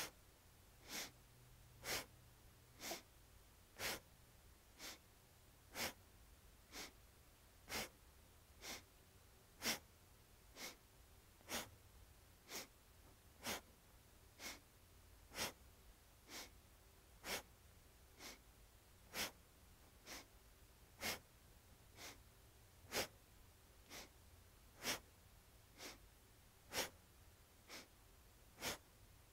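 Short, forceful breaths through the nose in a steady rhythm, about one a second, alternating louder and softer: an inhale on each arch and an exhale on each round of a brisk cat-cow.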